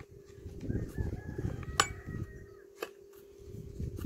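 A rooster crowing faintly, one call starting about a second in and lasting over a second. Under it, handling noise of a spark plug wrench being worked at a chainsaw's plug hole, with one sharp click near the middle.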